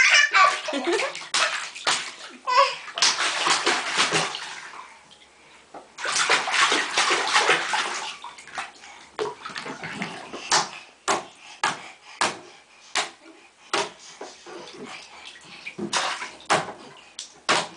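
A one-year-old splashing bathwater with his hands: two long stretches of splashing in the first half, then a string of separate slaps on the water.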